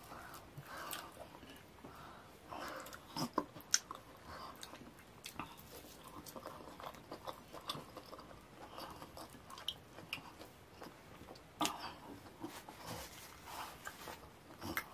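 Close-miked eating by hand: wet mouth smacks, chewing and finger-licking as the last of a slimy ogbono soup is wiped up from the plate with the fingers. Irregular sharp clicks and smacks throughout, the loudest about three and a half seconds in and again near twelve seconds.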